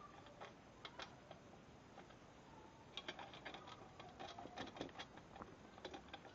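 Faint small metal clicks and light scraping from gloved hands fitting bolts and nuts on the metal saw-stand frame, with a quicker run of clicks about three seconds in.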